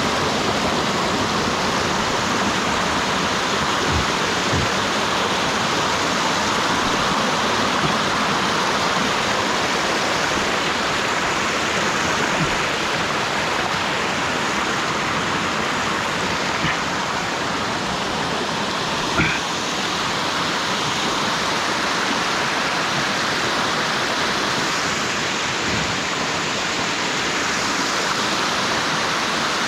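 Stream running full after heavy rain, a steady rush of water. A couple of soft knocks, the clearest about two-thirds of the way through.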